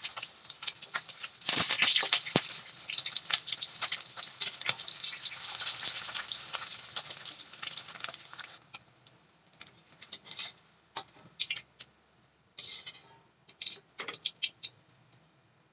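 Hot oil crackling and spattering around an egg frying in a metal wok. It swells into a dense crackle about a second and a half in, around when the egg is turned, then thins out to scattered pops and short bursts near the end.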